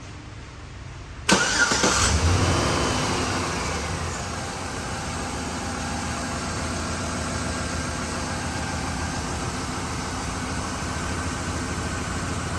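A 2013 Chevrolet Silverado's 5.3L V8 is cranked by the starter about a second in and catches at once. It flares up in revs, with a brief falling whine, then settles into a steady idle while misfiring, the active misfire being on cylinder 3.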